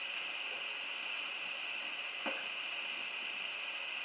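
Steady hiss of shop background noise, with one short knock a little over two seconds in.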